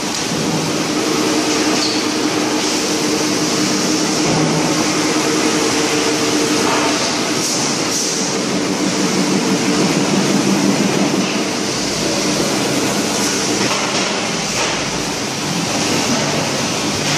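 Steel drum production-line machinery running: a loud, steady mechanical din with a low hum underneath.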